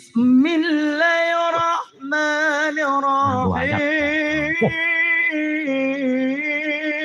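A man chanting Qur'anic recitation in the melodic tilawah style: long held notes with wavering ornaments. Short breaks come about two seconds in and again around three and a half seconds.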